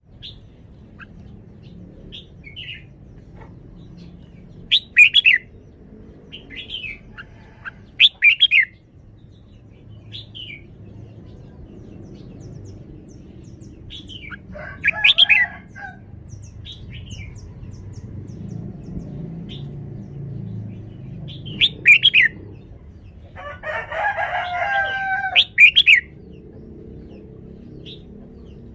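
Red-whiskered bulbul singing short, loud, warbling song phrases every few seconds, with softer chirps in between.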